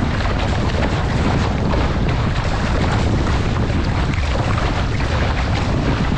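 Wind buffeting a deck-mounted camera's microphone over the steady rush and splash of water along the bow of an RS600 sailing dinghy moving fast through chop.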